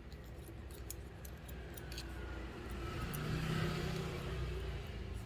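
Electric hair clippers running with a steady hum during a haircut, with a few light clicks early on. A louder swell of noise rises and falls around the middle.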